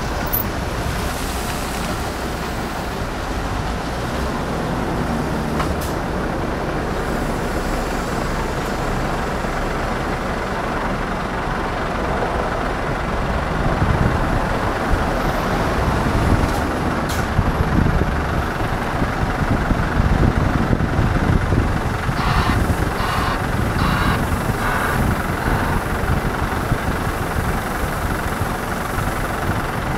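Heavy diesel engines of a wheel loader and a Scania R580 V8 truck running steadily, a low rumble that grows louder partway through. A run of short, evenly pulsed higher sounds comes about three-quarters of the way in.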